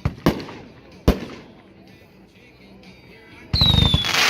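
Consumer 500-gram firework cake firing: three sharp shots in the first second, then, about three and a half seconds in, a loud whistle effect, a high whistle falling slightly in pitch over a rushing hiss.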